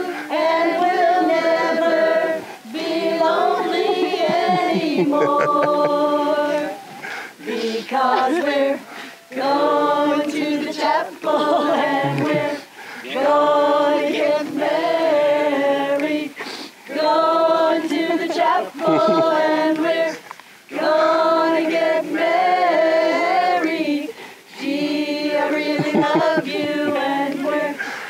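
A group of mostly women's voices singing a song together without instruments, in sung phrases of two to three seconds separated by brief pauses.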